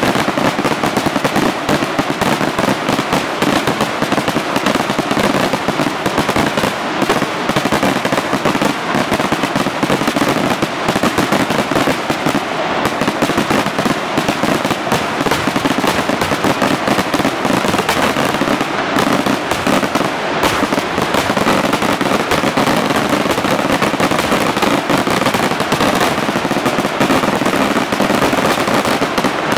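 Aerial fireworks in a dense, unbroken barrage: shell bursts and crackling reports following one another so fast that they run together, steady in loudness with no pause.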